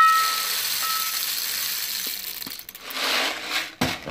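Airsoft BBs poured from a bottle down the loading tube of an M132 microgun: a continuous rattling clatter of many small plastic pellets for about two and a half seconds, then a second, shorter pour about three seconds in.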